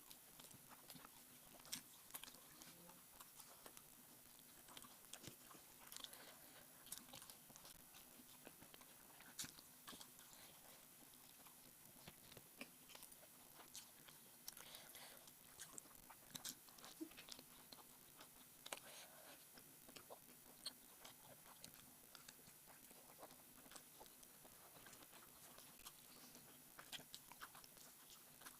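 Faint eating sounds of a person chewing rice and egg curry: scattered soft mouth clicks and smacks, irregular and continuing throughout.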